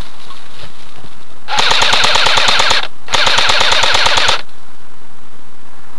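Airsoft rifle firing two full-auto bursts, each about a second and a half long, with a short pause between them: a fast, even rattle of shots.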